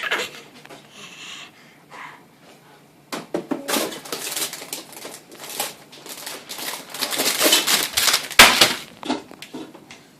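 Crinkling and rustling of something being handled, coming and going over several seconds, with a sharp clack about eight seconds in.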